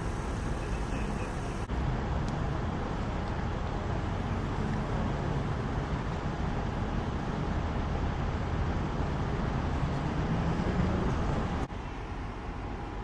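Steady low rumble of vehicles and road traffic, with emergency vehicles idling. The sound changes abruptly about two seconds in and again near the end.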